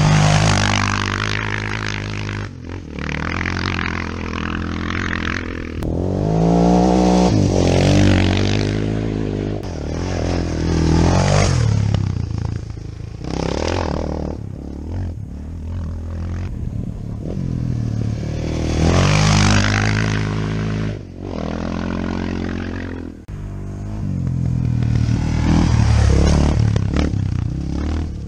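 Off-road motorcycles riding past one after another on a gravel track, each engine revving up and falling away through the gears as it passes. Tyres crunch and scatter gravel.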